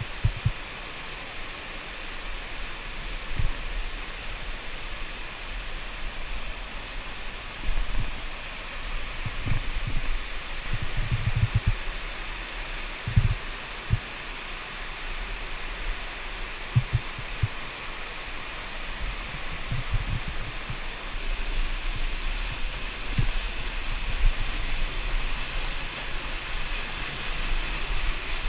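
Steady rush of flowing water from a cave stream, with irregular low knocks and bumps scattered through it.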